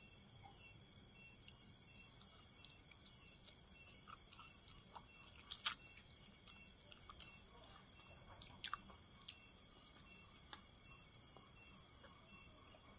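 A person eating Maggi instant noodles from a fork: soft chewing with a few sharp clicks around the middle, over steady, evenly pulsing insect chirping.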